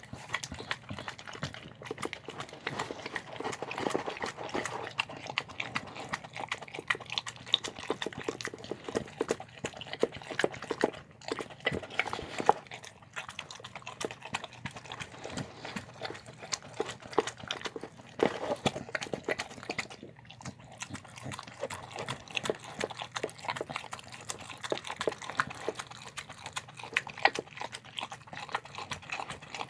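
A dog eating a meal of chicken and steamed rice, with a continuous run of quick wet smacks and chewing clicks.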